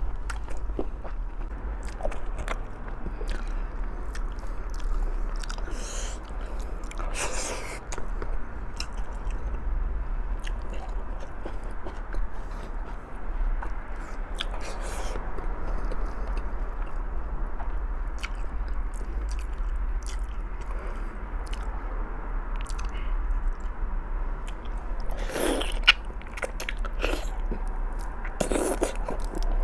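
Close-miked chewing and biting of stewed pork trotters: a steady run of moist chewing and small smacks, with a few louder bites at about seven seconds in and twice near the end.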